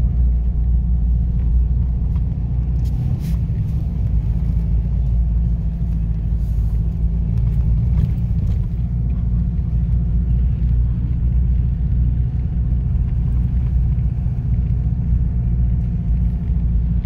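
Steady low rumble of a 4x4 driving on a snow-covered road, heard from inside the cabin: engine and tyres on packed snow, with a few faint clicks or knocks.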